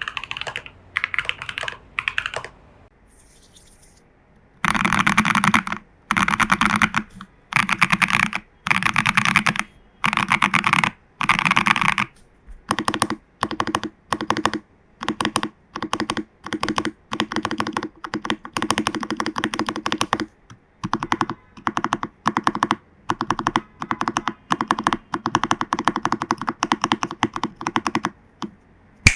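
Typing on a mechanical keyboard: a TU40 plastic-case kit with case foam, PCB foam, tape mod, lubed Fantasy Virus switches and XMI keycaps, its keys clacking in fast runs of keystrokes with a short pause about three seconds in.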